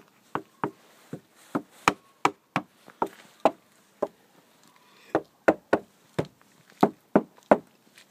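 Knuckles knocking on a car's rear liftgate panel about twenty times, two or three knocks a second, some harder than others. The panel is backed with layers of sound-deadening mat, and the knocks sound a little more solid.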